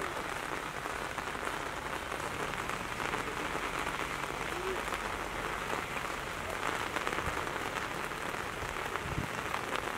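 Steady rain falling, an even hiss of noise.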